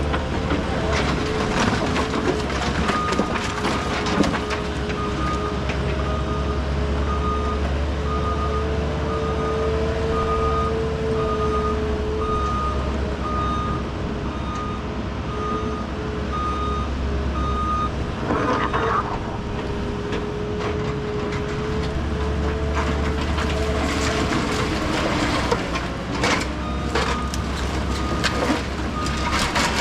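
Heavy equipment's backup alarm beeping about once a second over a steadily running diesel engine; the beeping stops after a short burst of noise, then returns near the end, with scattered knocks and clatter.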